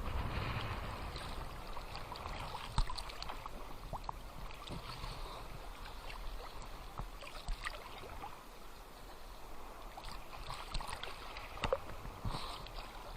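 Small Black Sea waves lapping and splashing at the water's edge: a steady wash of water with scattered short, sharp splashes throughout.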